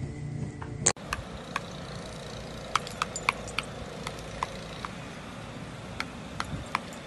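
Sharp, irregular clicks and clinks, about fifteen over five seconds, as a dog bites and mouths at a metal garden wind spinner on its pole. A steady low rumble runs underneath.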